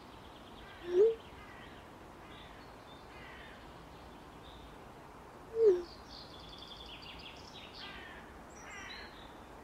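Two short text-message tones from a phone: a quick rising blip as a message arrives about a second in, and a quick falling blip as the reply is sent near the middle. Birds chirp faintly throughout.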